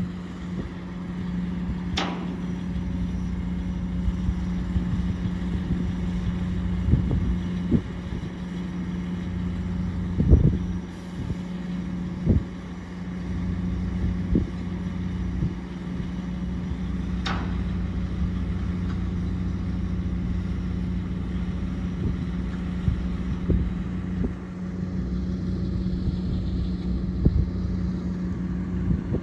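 An engine running steadily with a low hum, with two sharp metallic clinks, one about two seconds in and one about two-thirds of the way through, and a few duller knocks between them.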